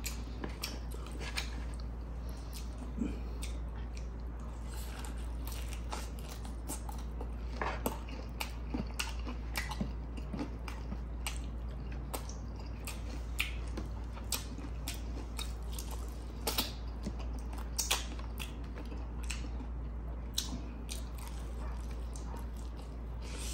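A person biting and chewing grilled chicken and rice close to the microphone, with many small scattered mouth clicks and smacks. A steady low hum runs underneath.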